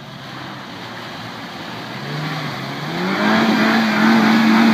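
Suzuki Jimny's engine revving hard as it drives through a mud hole, the pitch climbing about two seconds in and then held high and loud, with its wheels spinning and flinging mud.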